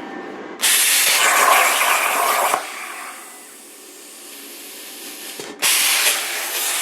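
YesWelder Cut-55DS Pro plasma cutter's torch running on a CNC table, a loud hiss. It starts abruptly about half a second in, drops away after about two seconds, and starts again abruptly near the end.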